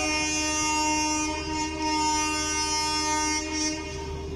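WAG-12B electric locomotive's horn sounding one long, steady blast of about three and a half seconds as the locomotive creeps in for coupling, over a steady machinery hum.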